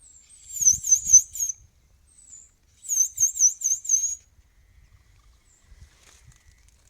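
A bird calling: two runs of rapid, high-pitched repeated notes, each about a second long and about two seconds apart, with a single short chirp before and between them.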